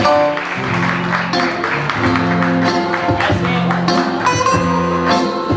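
Band playing a Greek sirtaki, a plucked-string lead over a steady beat and sustained bass notes.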